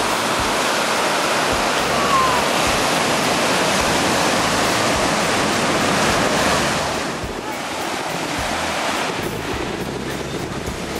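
Lake Superior waves breaking and washing up on a pebble shore, a steady surf, with wind buffeting the microphone. The surf drops a little in level about seven seconds in.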